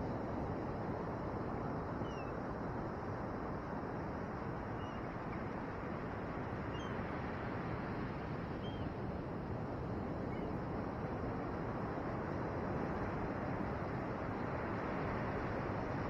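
Steady noise of ocean surf breaking, with wind on the microphone. A few faint, short bird calls come through in the middle.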